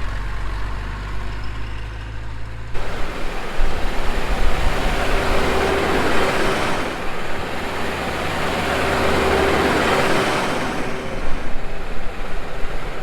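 Farm tractor and tipper truck engines running as they drive along: a steady low engine hum at first, then, from about three seconds in, a louder rushing vehicle noise with a faint steady whine, easing off near the end.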